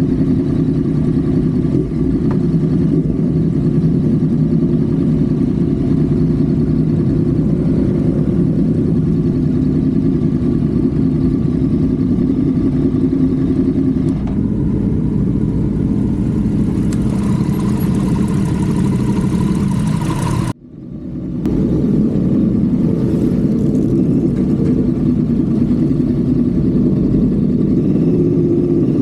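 Honda Civic FD's engine and road noise at high highway speed, heard onboard as a steady, loud drone. The sound cuts out for about a second about twenty seconds in, then returns.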